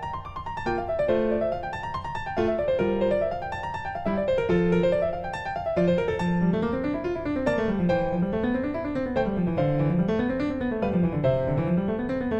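Background piano music: rippling runs of notes rising and falling over held chords.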